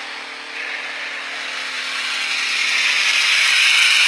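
Water spraying from the jets of a water-fed pole brush: an even hiss that grows steadily louder, over a steady low hum.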